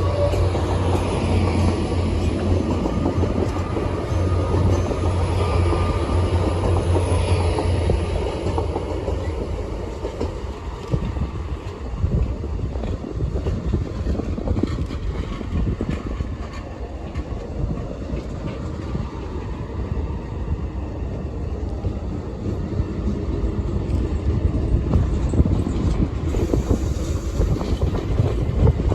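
Train running past on the main line, with a steady low hum and some clickety-clack from the wheels. The hum fades about eight seconds in, leaving a rough rumbling noise.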